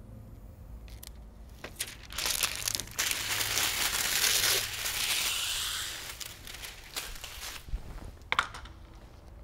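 Window tint film having its release liner peeled off, a loud hiss starting about two seconds in and fading out around six seconds. A few short spritzes from a hand pump sprayer follow near the end.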